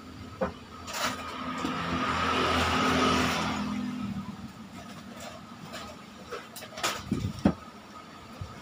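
A motor vehicle passing by, its sound swelling to a peak about three seconds in and fading a second later. A few sharp clicks and knocks come before and after it.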